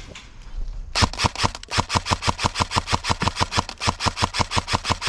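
Airsoft gun firing a long, steady string of shots, about five a second, starting about a second in.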